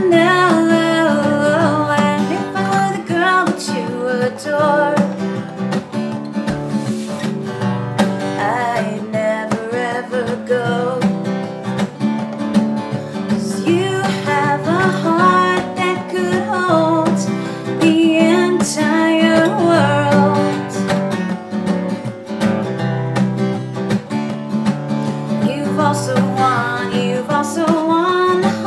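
A woman singing with her own acoustic guitar accompaniment.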